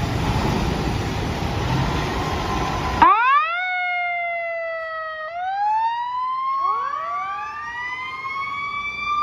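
A steady rushing noise that cuts off suddenly about three seconds in, then a fire-engine siren wailing, rising and falling in pitch, with a second wail overlapping it in the last few seconds.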